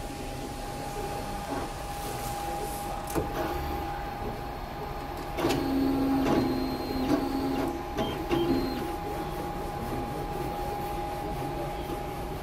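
Flatbed UV LED printer running a print job: the print-head carriage motors whir in passes, loudest from about five and a half to eight seconds in and again briefly just after, over a steady high hum.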